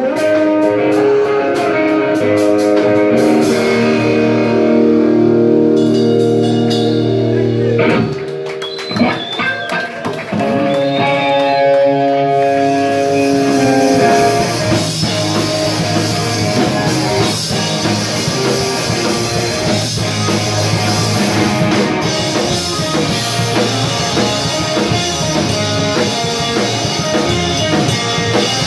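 Live punk-rock band playing loudly on electric guitars, bass and drum kit. Held guitar chords ring for the first several seconds, the sound drops into a brief sparser stretch with sliding guitar notes, and the full band with drums comes back in about halfway through.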